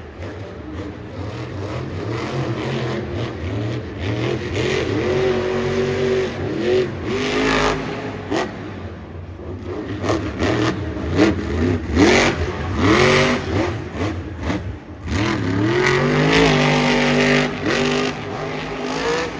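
Monster truck's supercharged V8 revving hard in repeated bursts, its pitch sweeping up and dropping back again and again, then climbing and holding high near the end.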